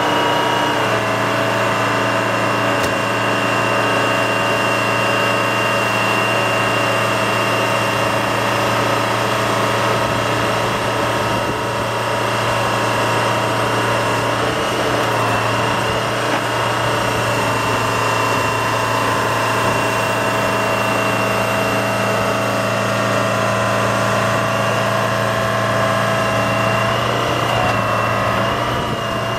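Old crawler hydraulic excavator running steadily as it swings and works its boom and bucket, with a steady high whine over the engine. The pitch shifts slightly around the middle and again near the end.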